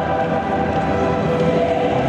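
Choral singing in long held notes, echoing through a full stadium.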